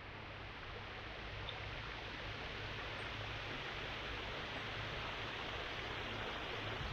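Waterfall rushing in a steady, even roar that grows slowly louder.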